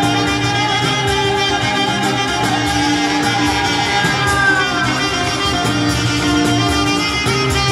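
Live folk band playing an instrumental passage: violin leading over guitar and accordion, with a repeating bass line and a falling slide in the melody about four seconds in.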